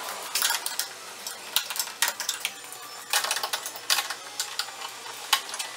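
Irregular bursts of quick, sharp metallic clicking and clinking, from hand tools and hardware being handled.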